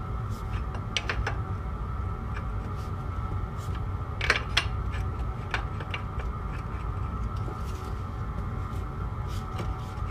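Metal tools clinking and knocking against steel parts, a scattering of sharp clinks with the two loudest about four and a half seconds in, over a steady hum.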